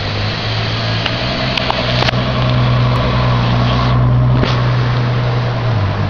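Ferrari FF's V12 engine running at low revs as the car pulls away slowly: a steady, deep engine note that grows louder midway and fades near the end as the car moves off.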